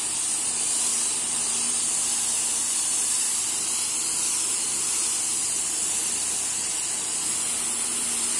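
High-pressure washer jet blasting a wet concrete floor: a steady, loud hiss of spraying water, with a faint low hum beneath it.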